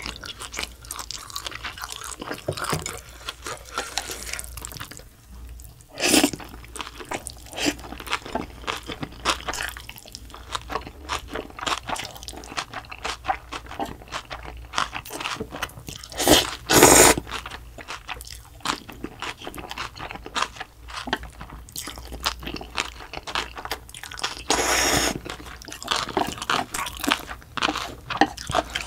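Close-up crunching and chewing of spicy cold mixed noodles with young radish kimchi, with three louder slurps of noodles, about 6, 16 and 25 seconds in.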